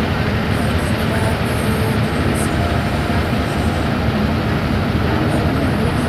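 Bus engine and road noise heard inside the driver's cab while cruising: a steady, loud low rumble with no change in pace.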